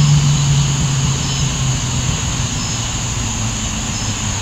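Low steady drone of a passing engine that slowly sinks in pitch and fades, over a steady high hiss; a single sharp click comes right at the end.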